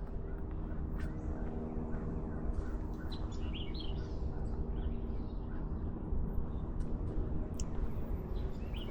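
Wild birds chirping in short scattered calls, busiest a few seconds in and again near the end, over a steady low rumble and hum.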